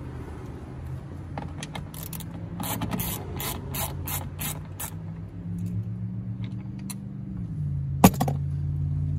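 Ratchet wrench clicking in a run of about three clicks a second while the last of the door mirror's three 8 mm mounting bolts is undone, over a steady low hum. A single sharp knock about eight seconds in is the loudest sound.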